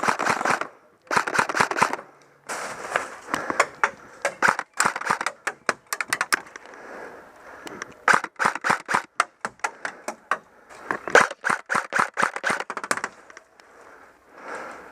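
Airsoft guns firing repeated bursts of rapid, sharp shots, with short pauses between the bursts.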